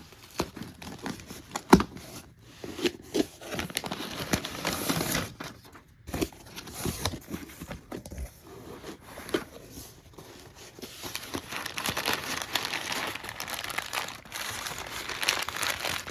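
A parcel being unpacked by hand: packing material crinkling and rustling, with tearing and scattered knocks and clicks as things are pulled out. A sharp knock a little under two seconds in is the loudest sound.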